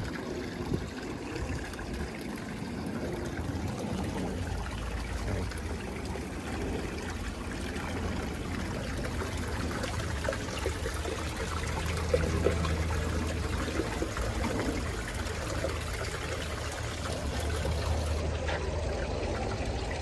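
Small stream of water running out of a cave and splashing down over rocks in a little cascade, a steady splashing flow.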